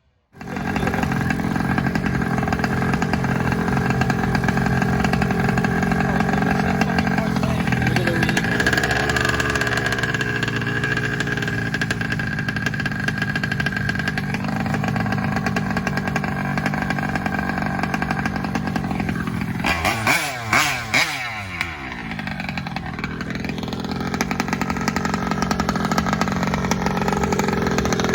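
Small two-stroke engine of a large-scale gas RC car running hard at high revs, its pitch dipping and climbing back up about eight seconds in and again around twenty seconds in.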